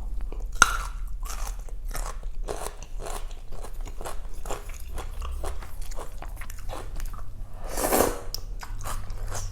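Close-miked chewing and wet mouth sounds of a person eating Thai boat noodle soup, many short irregular smacks, with one louder, longer sound about eight seconds in.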